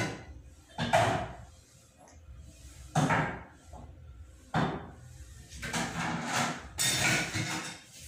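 A series of separate knocks and clatters, a second or two apart, each dying away quickly, with a longer, noisier clatter near the end: household objects being handled.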